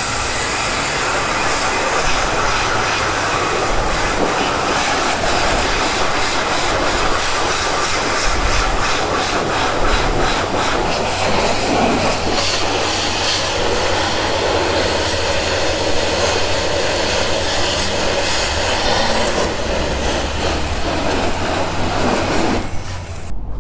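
Car-wash high-pressure wand spraying rinse water onto a motorcycle: a loud, steady rushing hiss that cuts off suddenly near the end.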